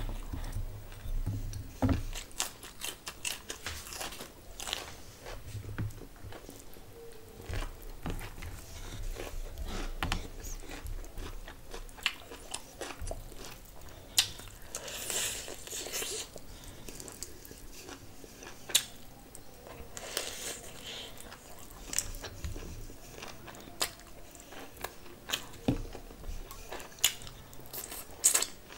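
Close-miked eating: biting and chewing pieces of curried meat with rice, with many sharp crunching clicks throughout.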